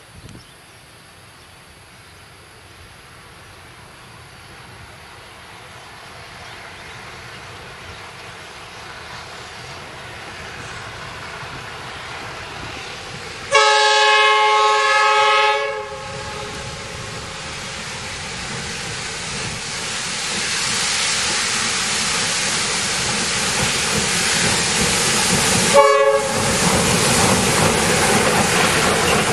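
A goods train double-headed by a Y class diesel-electric locomotive and a 2-8-0 steam locomotive approaches, its running noise growing steadily louder. The diesel's horn sounds one blast of about two seconds midway and a short toot near the end, and then the train's noise is loud as it passes close by.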